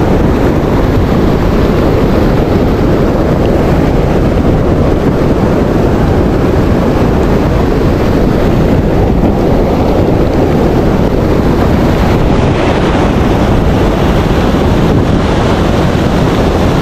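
Strong wind buffeting the microphone: a loud, steady rumbling noise that does not let up.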